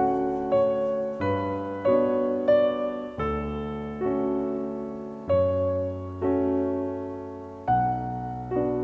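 Gentle background piano music: single notes and chords struck one after another, each fading before the next.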